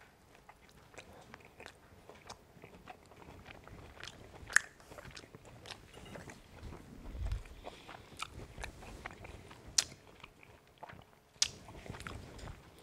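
A man chewing a mouthful of roast rack of lamb, with wet lip-smacking clicks throughout and a few sharper clicks, the loudest about four and a half seconds in.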